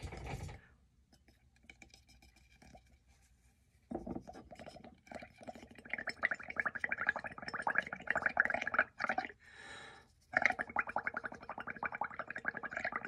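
Blowing through a drinking straw into a bowl of soapy bubble paint (dish soap, acrylic paint and water), a rapid gurgling bubbling as a mound of foam bubbles builds up. It starts a few seconds in, breaks off briefly for a breath, then bubbles on again.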